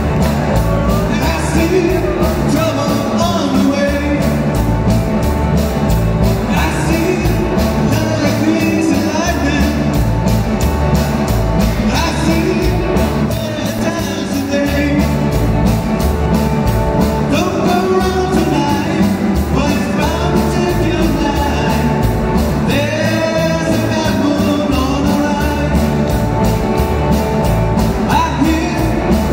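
Live rock band playing, with electric guitars, bass guitar and a drum kit keeping a steady beat under sung vocals.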